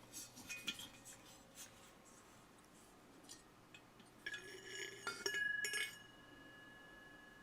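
Metal parts of a dismantled petrol air heater being handled: scattered light clicks and clinks, then a flurry of clinks about four seconds in that leaves a lingering metallic ring.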